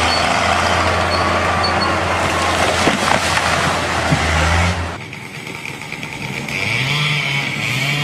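A large tree crashing down onto a house, its branches and leaves smashing, over the steady drone of a diesel machine's engine. The loud noise cuts off abruptly about five seconds in, leaving quieter background sound.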